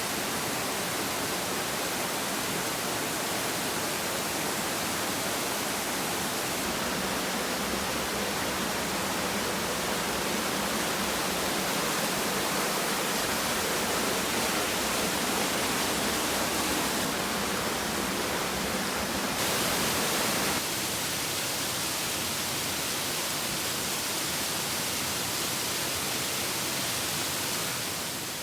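Valley stream water rushing steadily, with a dense, even hiss. Its tone shifts abruptly a few times, and it fades out near the end.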